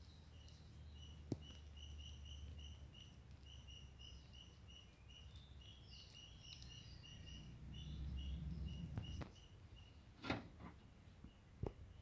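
Faint, evenly repeated high chirping, about three chirps a second, over a low hum; it stops about nine seconds in. A few sharp clicks follow near the end, the loudest about ten seconds in.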